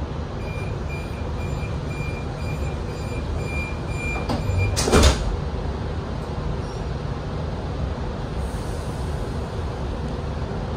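Train door-closing warning beeps repeating for about four seconds, then the sliding passenger doors shut with one loud thud about five seconds in. A steady low hum of the stationary carriage runs underneath.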